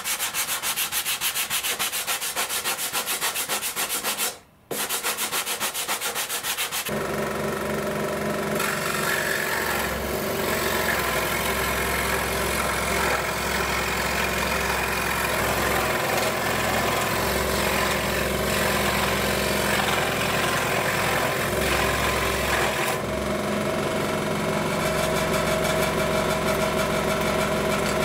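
Hand sanding of a wooden wing tip with a sanding block and coarse 100-grit sandpaper, in rapid back-and-forth strokes, broken off briefly about four seconds in. About seven seconds in, a 16-inch variable-speed scroll saw starts and runs steadily, its motor humming as the blade cuts a wooden wing tip block.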